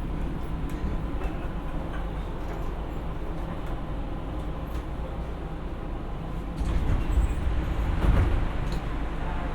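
Steady low rumble of a Siemens P2000 light rail car's interior, swelling louder for about two seconds near the end with a few knocks.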